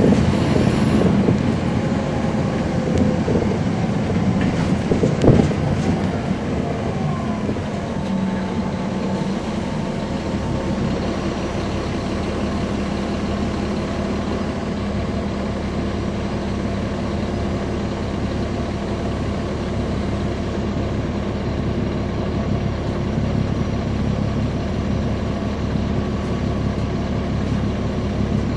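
Inside an NJ Transit 2009 NABI 416.15 (40-SFW) bus: its Caterpillar C13 ACERT diesel running through a ZF Ecomat six-speed automatic. A loud clunk comes about five seconds in, and a whine falls in pitch soon after. From about ten seconds on the engine settles into a steadier, deeper drone.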